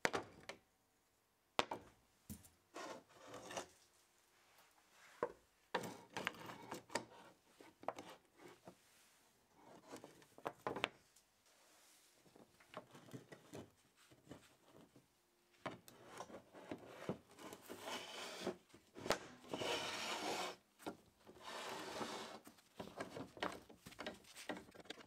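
Wooden tripod leg parts and their metal clamp fittings and plastic knobs being handled and fitted together on a wooden workbench: irregular sharp clicks and knocks mixed with scraping and rubbing, busier in the second half.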